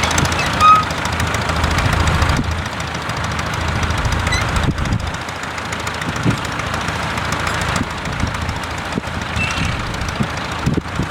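Tractor engine running, its low rumble heaviest for the first couple of seconds and then easing.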